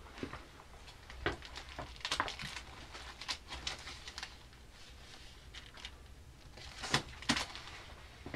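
Scattered light clicks, taps and rustling over a faint low hum, with two sharper knocks about seven seconds in.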